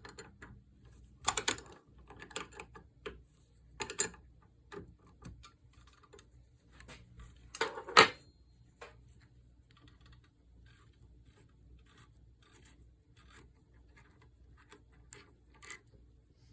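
Clicks and clinks of a hand tool and small metal spray-gun parts being worked and handled while the fluid nozzle is taken off. A few louder knocks come about a second in, around four seconds and around eight seconds, then lighter scattered ticks.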